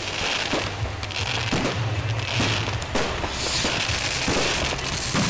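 Fireworks going off: aerial bursts and firecrackers making a dense, irregular string of bangs and crackles, several a second, over a continuous background of noise.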